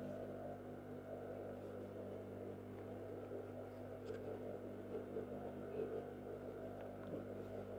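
Faint rustling of stiff organza and satin lining being gathered and arranged by hand, with a few small ticks, over a steady low hum.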